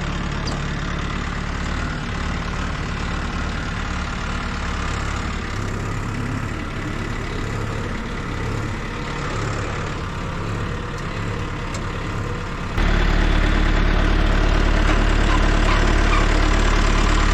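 Old tractor engine idling steadily. About thirteen seconds in the engine sound abruptly becomes louder and stays so.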